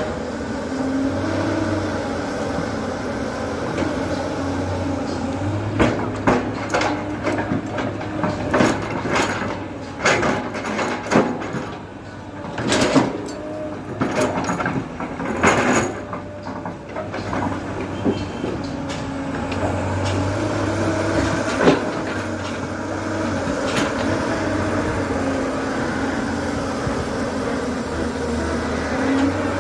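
JCB 3DX backhoe loader's diesel engine running, its speed rising and falling a few times as the hydraulics work. A run of sharp metallic clanks and knocks comes in the middle, typical of the bucket and boom working.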